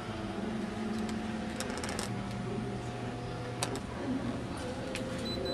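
Indoor room ambience: a steady low hum with a faint murmur of voices, broken by a few sharp clicks and ticks, a cluster of them about one and a half to two seconds in, another a little past three and a half seconds, and more near the end.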